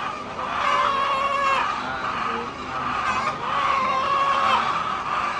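Chickens calling: two long, drawn-out calls, each about a second long, the second starting about three seconds after the first.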